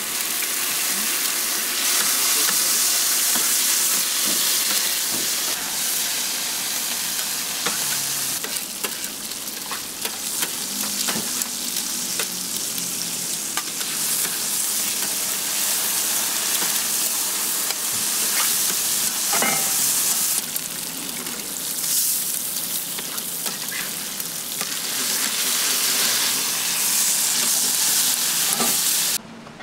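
Ramly burger patties and eggs sizzling in oil on a flat-top griddle, a loud steady frying hiss with occasional sharp clicks. It stops abruptly near the end.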